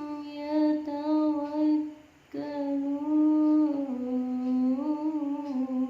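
Melodic Qur'an recitation (qira'ah): one voice holds and ornaments long vowels in sliding, wavering turns, with a short break for breath about two seconds in. The voice is hoarse from a cough and cold, by the reciter's own account.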